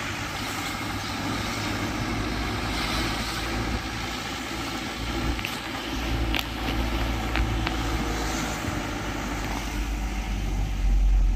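Car engine and road noise heard from inside the cabin of a moving car, a steady low rumble, with a few faint clicks about halfway through.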